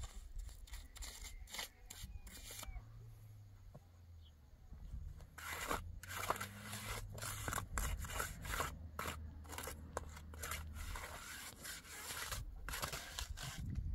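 Stone being scraped and set by hand on a mortared stone wall: a run of short scrapes and clicks of stone on stone, busier and louder from about five seconds in.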